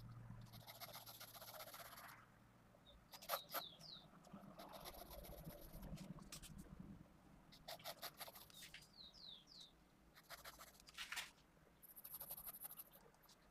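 Faint scratching of a 0.5 mm mechanical pencil with 2B lead on paper, in a series of short strokes with pauses between them.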